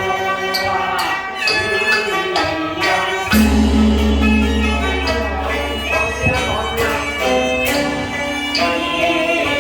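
Teochew opera ensemble playing a melody on wind and string instruments, with sharp percussion strikes every second or two.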